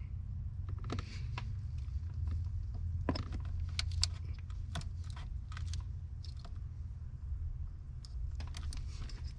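Scattered light clicks and snips of hand work on the old hood release cable as it is cut with wire cutters, over a steady low hum.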